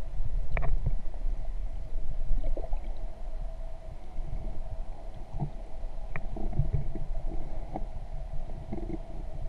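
Underwater sound through a GoPro's waterproof housing: a muffled low rumble of water against the case with a steady hum and scattered soft knocks and clicks.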